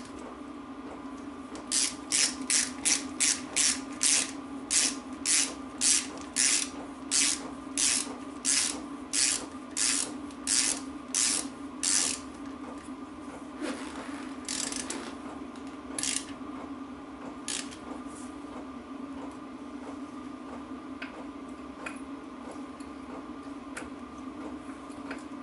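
Hand socket ratchet tightening bolts into a differential housing, clicking in short back-strokes at about two a second for some ten seconds, then a few slower strokes.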